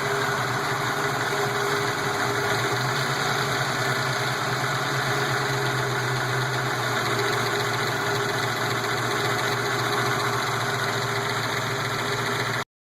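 A 331 engine idling steadily with lifter noise from the valvetrain. It cuts off suddenly near the end.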